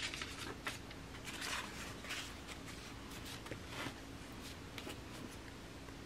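Sheets of collage paper rustling and sliding as they are handled and laid on a journal page: a quick run of soft rustles in the first couple of seconds, then a few scattered ones.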